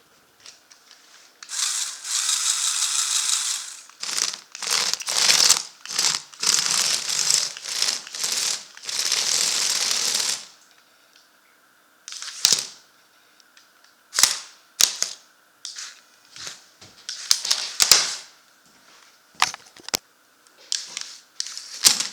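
Lego Technic electric motors whirring through their plastic gearing as the RC robot drives: long continuous runs for several seconds, then a string of short stop-start bursts.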